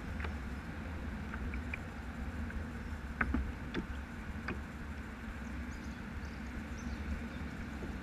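Low steady background rumble with a few scattered light clicks and taps, the sharpest about three seconds in.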